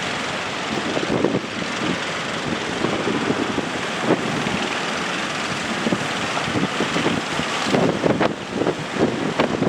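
Fishing boat's engine running steadily while strong wind buffets the microphone, with heavier gusts near the end.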